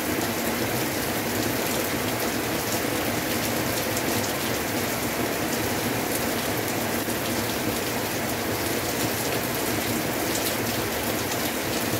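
Heavy rain pouring steadily: a dense, even hiss with many small drop ticks scattered through it.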